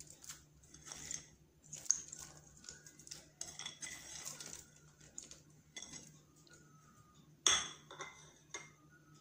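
Light clicks and clatter of halved cashews, almonds and raisins being scattered by hand into a non-stick kadhai of sugar-topped vermicelli, with a sharper clink about seven and a half seconds in.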